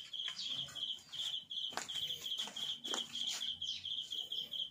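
An insect chirping steadily, a high pulsed call of one even pitch repeating about four times a second, with a couple of faint clicks midway.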